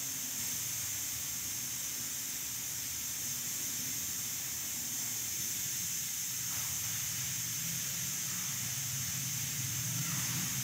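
A steady high-pitched hiss with a faint low hum underneath.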